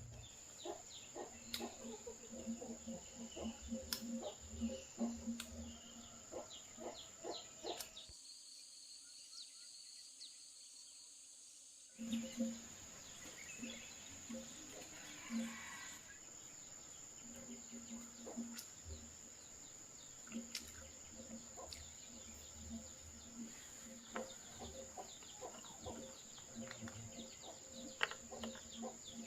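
Insects trilling steadily in one high, unbroken tone, with irregular light knocks and clatter throughout. The trill drops out for about four seconds, about eight seconds in.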